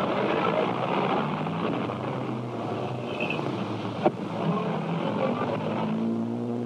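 An early-1930s car's engine running steadily as it drives, heard through the hiss of a worn old film soundtrack. There is a single sharp click about four seconds in.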